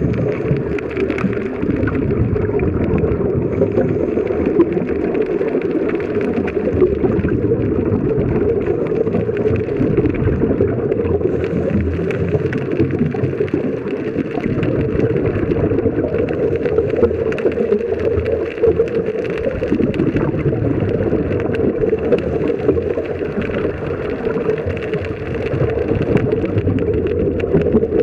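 Steady muffled underwater rushing noise picked up through a camera's waterproof housing, with most of the sound low and dull and nothing above the middle range.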